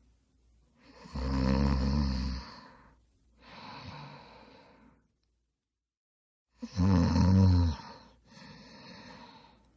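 Snoring: two loud snores about five and a half seconds apart, each followed by a quieter breath out.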